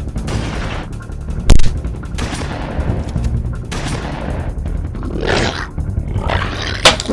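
Background music with added battle sound effects: a steady music bed, a loud bang about a second and a half in and another near the end, with noisy swells in between.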